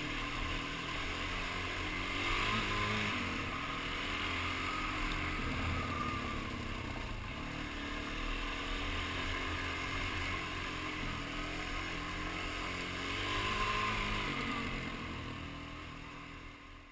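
Suzuki DR-Z400S single-cylinder four-stroke engine running under way on a dual-sport motorcycle, its pitch rising and falling with the throttle twice, about two seconds in and near the end. The sound fades out at the very end.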